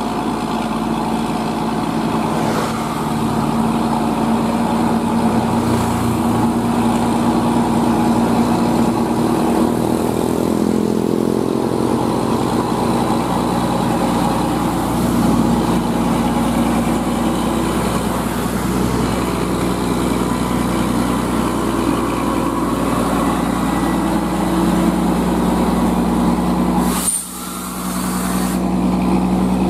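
Diesel engine of a loaded Hino 500 cargo truck labouring up a steep grade in low gear, with a steady drone that shifts in pitch partway through. Near the end the sound breaks off briefly, then a truck is heard passing.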